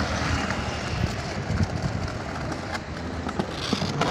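Skateboard wheels rolling over paving: a steady rumble with a few small clicks.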